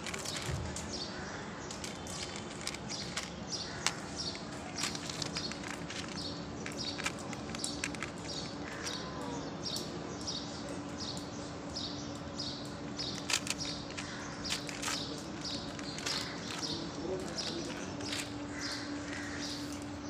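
A cat crunching dry kibble from a plastic tray, with many small clicking bites, while a bird chirps over and over in the background, about twice a second. A steady low hum runs underneath.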